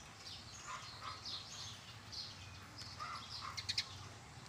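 Small birds chirping in short scattered calls, with a quick run of sharp clicks about three and a half seconds in.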